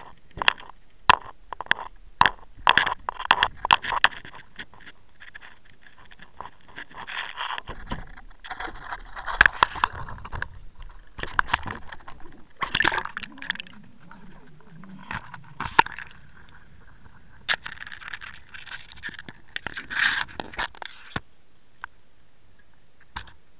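Close handling noise from the camera: a run of sharp knocks and clicks, then irregular scraping and rustling as it is moved about on the boat's carpeted deck and held over the side. About 21 seconds in the noise stops as the camera goes under water.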